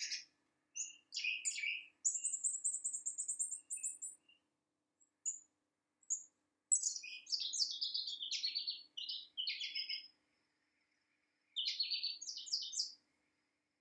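Small birds singing: a thin, high trill, then several bursts of quick, varied high-pitched notes separated by short pauses.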